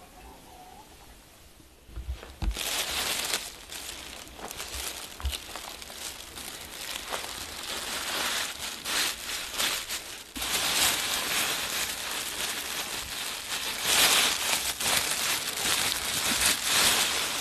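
Plastic bags crinkling as they are folded and pressed over the mouth of a clay pickling jar to seal it. The crinkling starts about two seconds in and gets louder about ten seconds in.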